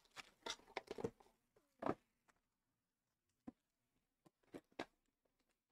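Faint handling noise from trading-card boxes and packs: a run of small clicks and rustles at first, one louder rustle about two seconds in, then a few scattered clicks.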